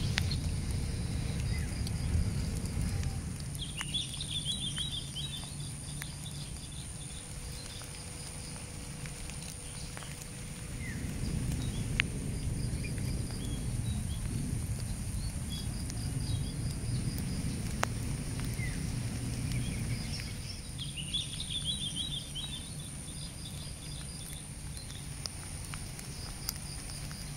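Outdoor ambience: small birds chirping, with bursts of trilled chirps about four seconds in and again near twenty-one seconds and short repeated notes in between, over a low steady rumble and a thin, steady high whine.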